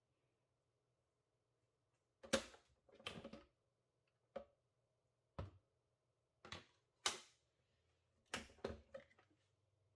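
A series of separate knocks and clunks about a second apart, the last few coming close together as the Ninja blender's jar is gripped and worked loose from its base.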